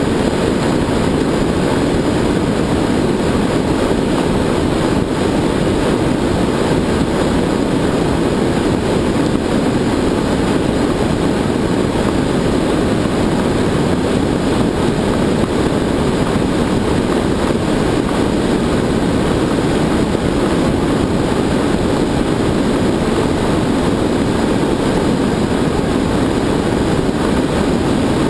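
Steady rushing wind noise on a camera riding in a foam cooler under a high-altitude weather balloon, an even, unbroken hiss and rumble with no engine or tone in it.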